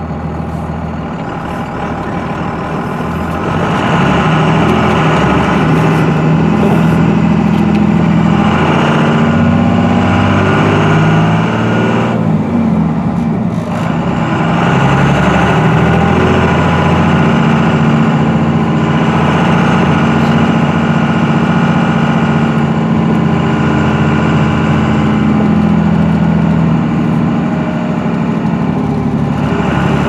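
24-valve Cummins 5.9-litre inline-six turbo diesel in a second-generation Dodge Ram, heard from inside the cab while driving. The engine drone grows louder about four seconds in, dips briefly around twelve seconds where its pitch falls and then climbs again, and then runs on steadily.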